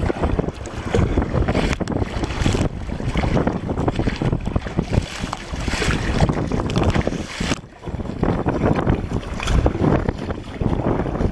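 Wind buffeting the microphone over water sloshing around a sea kayak paddling out on open ocean, the noise swelling and falling with a brief lull about eight seconds in.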